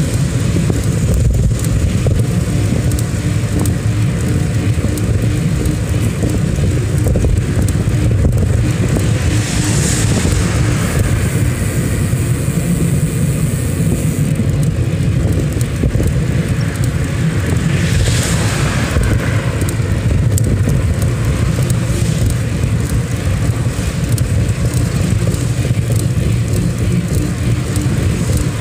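Steady low rumble of wind and road noise on a phone microphone riding through city traffic. Nearby vehicles pass with a rising and fading hiss, once about a third of the way in and again a little past halfway.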